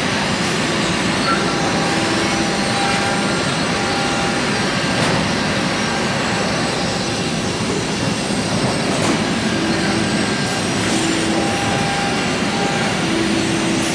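Steady hum and hiss of automated factory machinery, with short whining tones from the servo motors of industrial robot arms that start and stop every second or two as the arms move.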